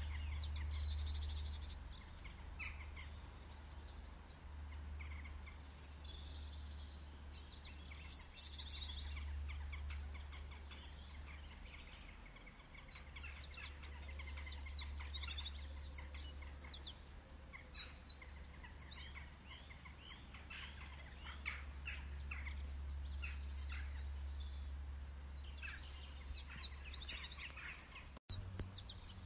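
Birds chirping and singing: many short high chirps and quick trills, over a steady low hum.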